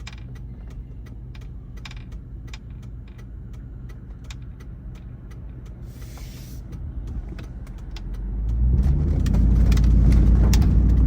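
Truck engine idling low and steady, with light clicks over it. About eight seconds in it pulls away, and the engine runs much louder as the truck drives off.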